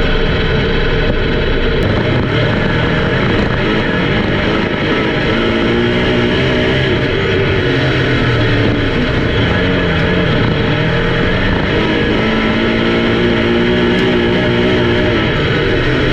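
Race car engines running hard on an oval track, the pitch rising and falling twice as cars pass by.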